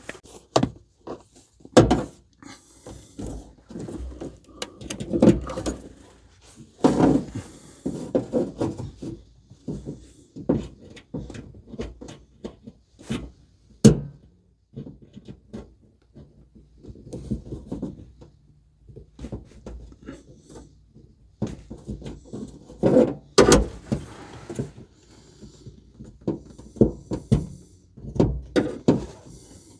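Irregular clicks, knocks and scrapes of hands and a tool working at a plastic push-pin clip on a 4Runner's liftgate trim, prying it loose, with a few sharper knocks scattered through.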